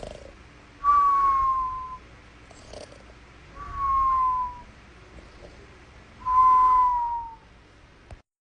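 Snoring with a whistling tone. Three breaths come about two and a half seconds apart, each a whistle that slides slightly down in pitch over about a second, with a low rasp beneath it. The sound cuts off near the end.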